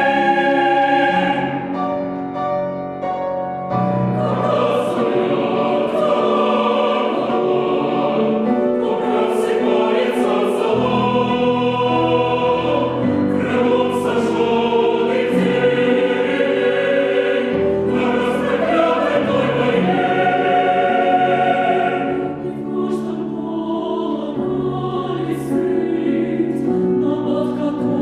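Chamber choir singing a slow, sustained choral passage in long phrases, easing briefly about two seconds in and again near the end.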